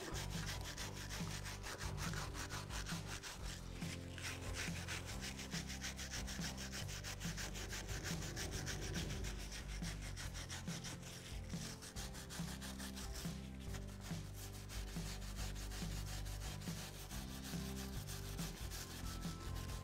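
Hand wire brush scrubbing rust off the hub bore of a truck's front steering knuckle, a continuous scratchy back-and-forth rasping of bristles on rusty metal. The bore is being cleaned of rust before a new wheel hub is fitted.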